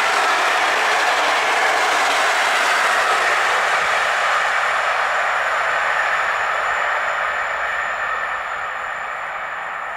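Electric-hauled PKP InterCity passenger train's coaches rolling past on the rails, then receding down the line. The rail noise fades gradually over the last few seconds.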